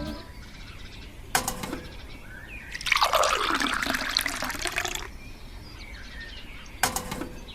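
Water pouring for about two seconds in the middle, set between two short knocks.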